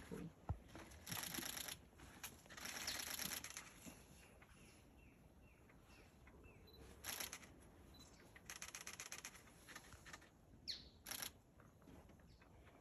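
Faint bird sounds: several short, high, buzzy trills, and about ten seconds in a thin, high whistle sliding steeply downward, like the descending call of a green-and-black fruiteater.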